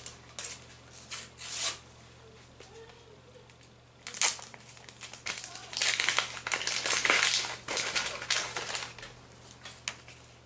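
Foil sticker packet being torn open and its wrapper crinkled. The crackling comes in short bursts, with the densest run about six to eight seconds in.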